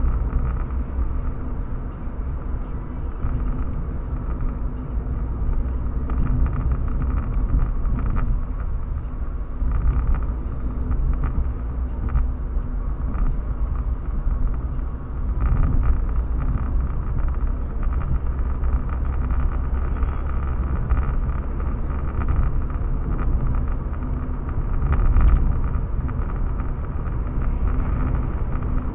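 A car driving along a road: steady low rumble of engine and tyres, swelling slightly now and then.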